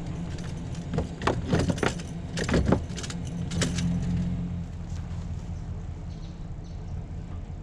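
Pickup truck engine idling steadily, with a run of clattering, clinking knocks between about one and four seconds in as fishing gear in the truck bed is handled.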